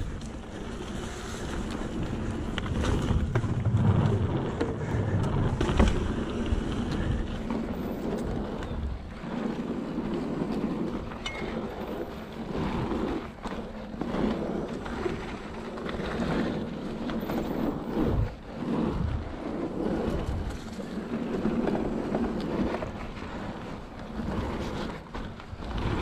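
Mountain bike running down a dirt trail: knobby tyres rolling on packed earth and the bike rattling and knocking over bumps, under steady wind buffeting the microphone.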